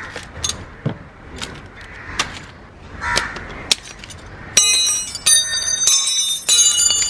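Hand tools set down one after another on a concrete floor, making light clicks and taps. From about four and a half seconds in come several loud, ringing metallic clanks as steel spanners are dropped onto the concrete.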